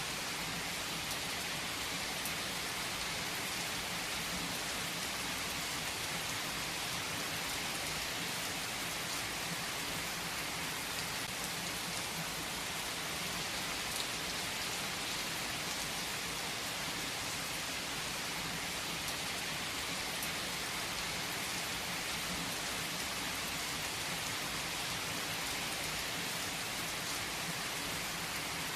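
Steady rain falling and pattering on a surface, an even hiss of many drops with a few louder single drops standing out.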